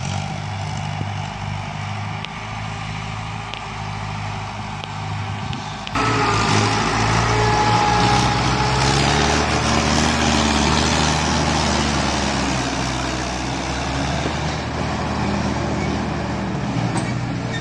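Diesel engines of two tractors, including a Mahindra Arjun 555, running steadily under heavy load as they pull a loaded sugarcane trolley. The sound is moderate at first, then jumps suddenly louder and closer about six seconds in.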